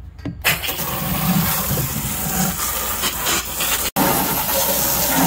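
Garden hose spray nozzle blasting water into the plastic tank of a floor-cleaning machine, a steady hissing spray with splashing inside the tank. It starts about half a second in.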